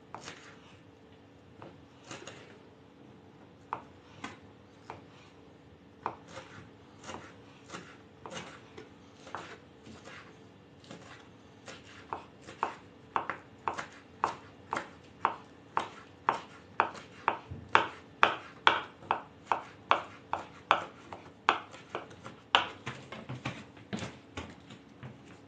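Kitchen knives chopping on wooden cutting boards, dicing boiled potato and green onion. Scattered taps at first, then a steady run of about two to three chops a second through the middle that stops shortly before the end.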